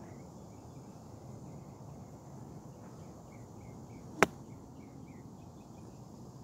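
A golf club strikes a ball once, a single sharp crack about four seconds in, over faint, steady chirping in the background.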